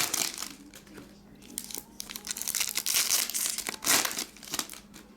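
Foil trading-card pack wrappers crinkling and tearing as packs are opened and handled, in irregular rustles with a sharper crackle about four seconds in.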